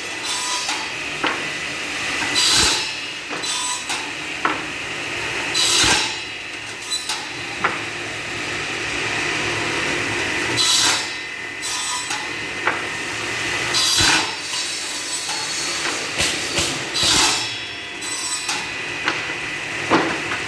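Automatic two-blade wood-cutting saw running steadily, its blades cutting through wood in a loud surge about every three seconds, over a constant motor drone with a thin whine.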